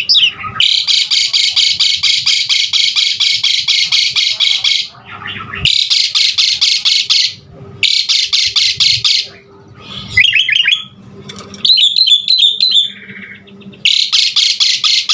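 Asian pied starling (jalak suren) singing: long, harsh, rapidly pulsed chattering phrases broken by short pauses, with a quick run of clipped whistled notes about two-thirds of the way through.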